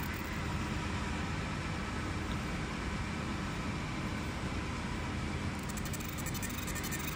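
20 W fiber laser marking machine running with a steady whirr and faint whine. The fast, buzzing high hiss of the laser pulses ablating the bismuth telluride piece stops at the start and comes back about five and a half seconds in.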